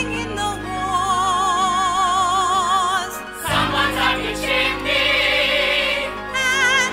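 Music with singing voices holding long notes with a strong vibrato, choir-like. About halfway through the music grows fuller and busier.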